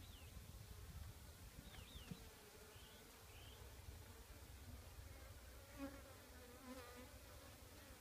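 Honey bees buzzing faintly around an open top-bar hive, with the buzz swelling for a moment about six seconds in as bees fly close.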